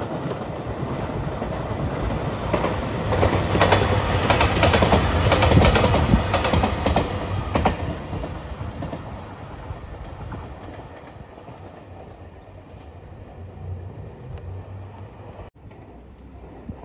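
JR Shikoku 2700 series diesel train passing close by: the engines hum under the noise, the wheels clack over the rail joints several times, and the sound peaks a few seconds in and then fades away.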